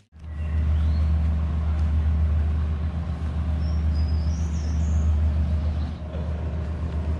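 Steady low drone of a large engine running at a constant speed.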